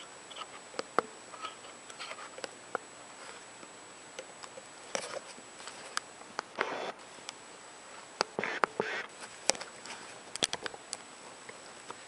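Handling noise: scattered small clicks and taps with a few short rustles, over a faint steady high-pitched whine.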